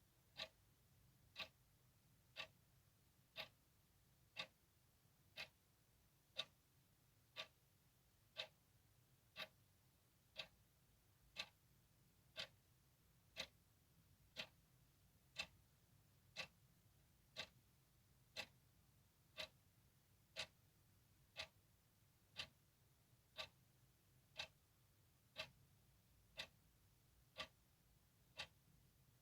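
Clock ticking steadily at one tick a second, each tick a short sharp click.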